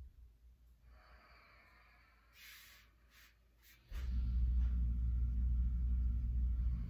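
Soft breathing with a few light clicks, then about four seconds in a loud, steady low rumble starts abruptly and keeps going.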